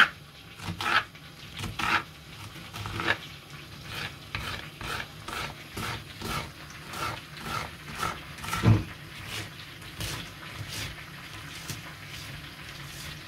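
Kitchen knife chopping an onion on a bamboo cutting board: a run of sharp taps of the blade on the wood, about two a second, fading near the end.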